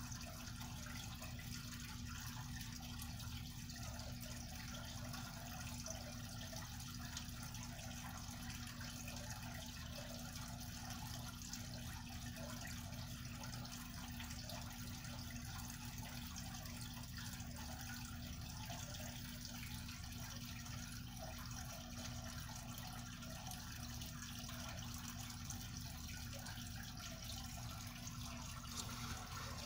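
Steady background hiss with a low hum, even throughout, with no distinct knocks or other events.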